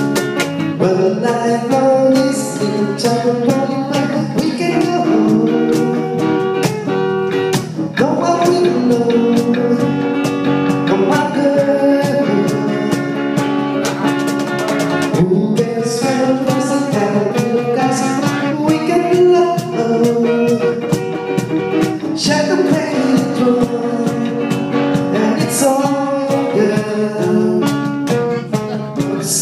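Live band playing a song: electric guitar and drums under a gliding lead melody, with a singer's voice.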